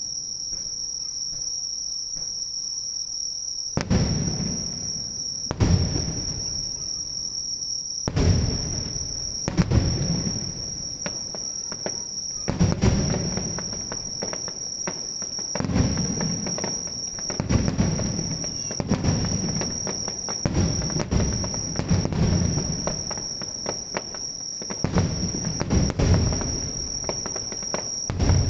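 Aerial fireworks shells bursting with booming reports, about a dozen at irregular intervals of one to three seconds, each followed by a low rumbling decay. Under them runs a steady high-pitched insect chorus.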